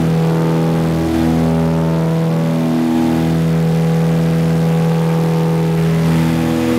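Small propeller plane's engines running steadily at climb power just after takeoff, heard from inside the cabin as a loud, even drone.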